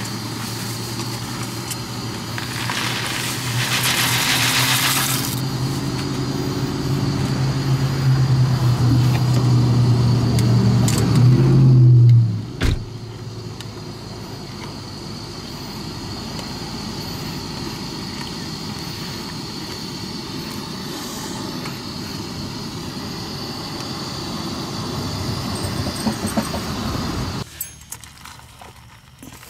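Dry macaroni rattles out of a cardboard box into a pot of boiling water on a canister gas camp stove for about three seconds. Under it runs the steady hiss of the burner and the boiling water. A low engine hum rises slightly and stops about twelve seconds in, and the steady noise stops near the end.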